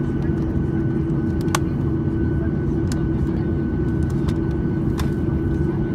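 Steady low drone of an airliner's cabin, heard from inside, with a constant hum and a few short, sharp clicks.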